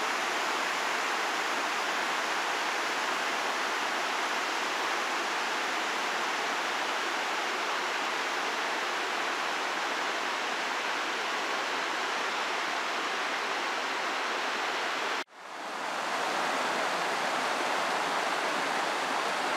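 Steady rush of water from a small stream cascading over rock slabs. About fifteen seconds in it cuts out abruptly and fades back up.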